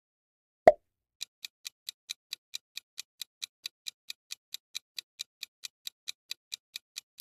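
Countdown-timer clock ticking sound effect: even, short ticks at about four or five a second, starting just over a second in, after a single sharp hit.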